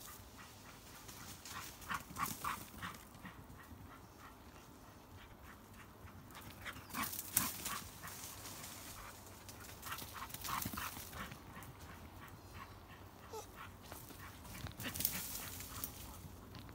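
Faint sounds of dogs and a walker moving over leaf litter on a dirt woodland path: four clusters of short crackles, a few seconds apart.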